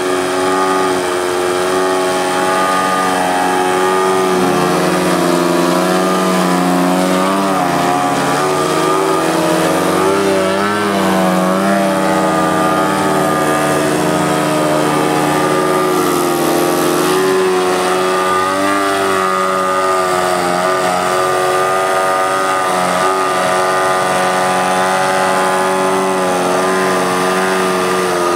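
3W 56iB2 twin-cylinder gasoline engine of a large RC aerobatic plane running continuously, its note swinging up and down as the throttle is worked through a nose-up hover. The engine has been freshly tuned and runs smoothly.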